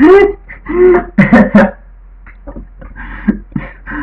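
A man's wordless vocal sounds: a short gliding cry and a few quick voiced exclamations in the first two seconds, then only faint scattered clicks and murmurs.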